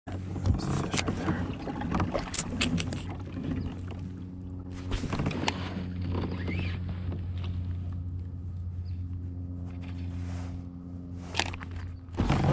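A steady low hum with clicks and knocks of rod, reel and tackle being handled in a fishing kayak.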